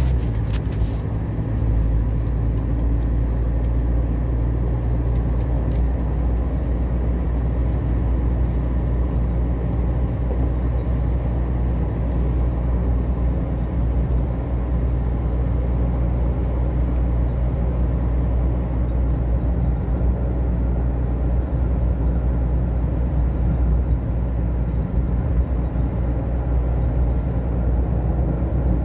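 Steady low rumble of a car driving along a road, heard from the moving vehicle: engine and tyre noise, with no pauses or sudden sounds.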